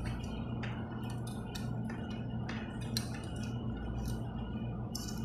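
Light metallic clicks and rattles as a steel brake cable is slid out through a BMX frame's cable guides, over a steady low hum.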